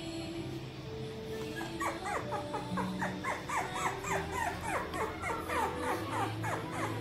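A puppy yipping in a fast string of short, high, falling cries, about four or five a second, starting about two seconds in and stopping near the end, over background music.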